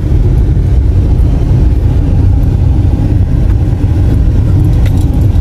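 Road noise inside a moving car: a steady low rumble of the engine and tyres rolling over a cobblestone street.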